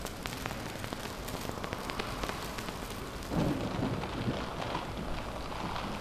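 Dense crackling patter with many fine clicks, joined about three seconds in by a low rumble that swells up and surges in waves.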